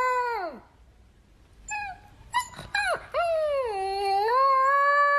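Dog howling: a long howl that drops away just after the start, a few short yips about two seconds in, then a second long howl that dips, rises and holds steady.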